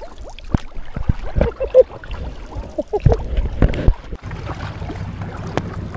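Underwater bubbling, clicks and knocks picked up by a GoPro in its waterproof housing just after a jump into the sea. About four seconds in, this gives way suddenly to a steady low hum.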